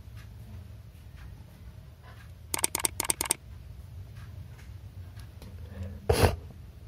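About half a dozen quick, sharp clicks from the hard plastic lure and its hook hardware being handled, then near the end a single loud sniff of a runny nose.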